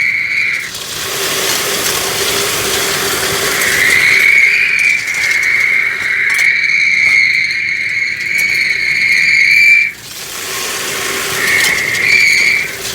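Industrial vacuum hose sucking on a flat roof: a loud steady rush of air with a high-pitched whistle. The whistle breaks off just after the start, comes back about four seconds in for some six seconds, and returns briefly near the end.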